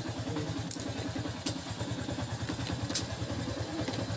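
Motorcycle engine idling with an even, rapid pulse, and a few sharp clicks over it.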